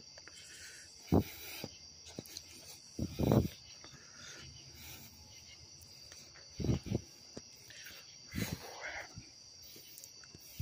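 Steady high-pitched chorus of night insects, with several dull thumps and knocks about a second in, around three seconds, around seven and around eight and a half seconds.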